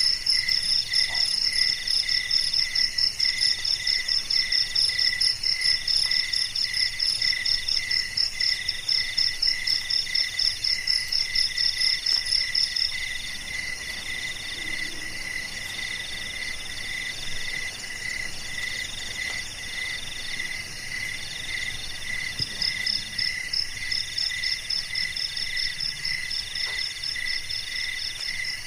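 Night chorus of crickets and other insects, several songs overlapping at different pitches: a high, fast-pulsing trill, a longer pulsed song in the middle, and a lower chirp repeating at an even pace. The high trill, the loudest, drops out about 13 seconds in and comes back about 22 seconds in.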